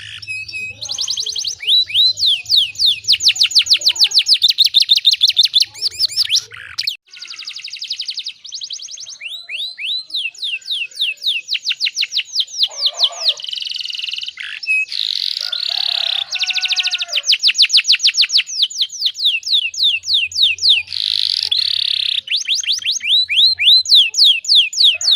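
Domestic canary singing long, fast trills of repeated high sweeping notes, phrase after phrase with short breaks between. It is a lure song played to set other canaries singing.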